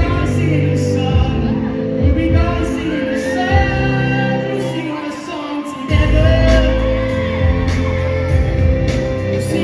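Live pop band performing, with a singer over a full band and heavy bass. Past the middle the bass and drums drop out for a moment, then come back in hard.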